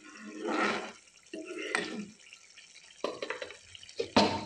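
Steel ladle stirring a thick, simmering masala gravy in a non-stick pan: irregular wet scraping and squelching strokes. Several sharp clinks of metal on the pan come through, the loudest near the end.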